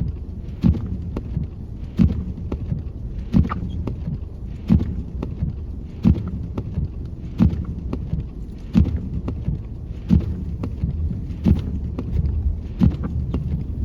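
Inside a car in the snow: a regular thump about every second and a third, with a softer tick between each, over a low steady rumble.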